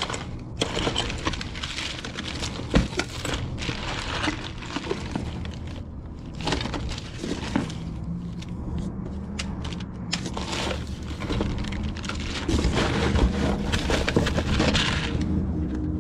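Rummaging through junk in a dumpster: an irregular run of crunching, crackling and clattering as debris is shifted and broken, with one sharp knock a few seconds in.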